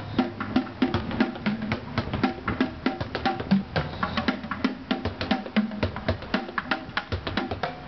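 Street bucket drumming: wooden drumsticks beating a fast, dense rhythm on upturned plastic buckets and a plastic trash can, hollow knocking hits at several pitches.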